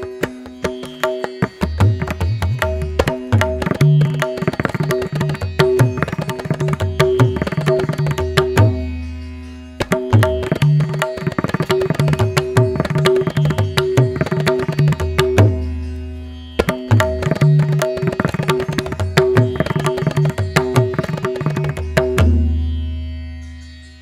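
Background music in Indian classical style: tabla drumming over a steady drone. It pauses briefly twice and fades out near the end.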